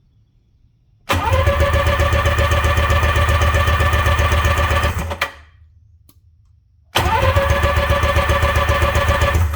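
Sea-Doo GTS two-stroke engine cranked over on its electric starter without firing, throttle wide open, in two runs of about four and two and a half seconds. It is a wet compression test on the front cylinder, which had read zero, and it shows something definitely wrong with that cylinder: the piston and rings are bad.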